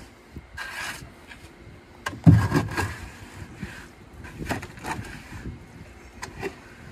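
Wet concrete being worked inside a skiff's hull with a wooden stick and by hand: scraping and knocking, with a heavy thump about two seconds in and a few sharper knocks later on.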